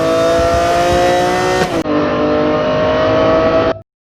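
Motorcycle engine running through an Austin Racing aftermarket exhaust, loud, its pitch climbing slowly as it revs up. The sound jumps at an edit about halfway, then cuts off suddenly near the end.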